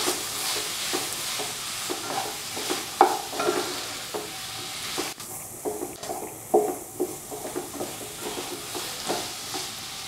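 Potato and bitter gourd pieces being stirred with spices in a metal pot over the heat: a utensil scraping and clinking against the pot at irregular moments over a steady sizzle of frying.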